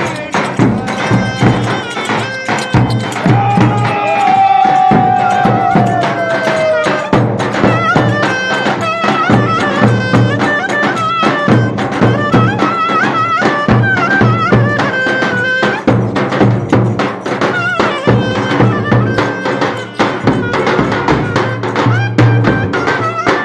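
Loud traditional Turkish folk dance music played live: a high, ornamented, wavering melody over fast, steady drumming, with a long falling slide in the melody a few seconds in.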